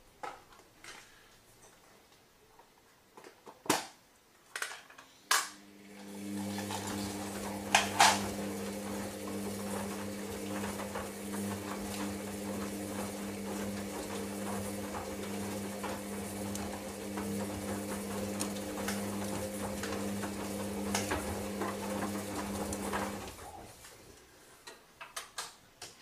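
Hoover Dynamic Next washing machine's motor turning the drum in a wash tumble: a steady hum starts about five seconds in and stops shortly before the end, with the load clicking and clinking inside the drum. There are scattered clicks before it starts and after it stops.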